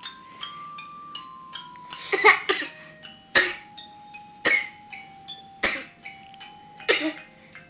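Toy mallet-instrument notes, like a toy xylophone or glockenspiel, struck one after another at about two a second, each ringing briefly. Several loud coughs break in over them from about two seconds in.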